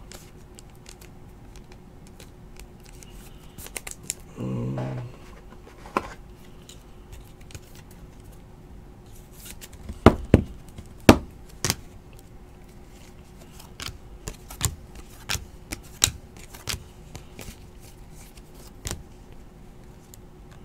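Trading cards being handled and sorted by hand: scattered sharp clicks and snaps of card edges tapped and flicked against each other, with a few louder snaps about ten to twelve seconds in. A brief low hum about four and a half seconds in, over a faint steady background tone.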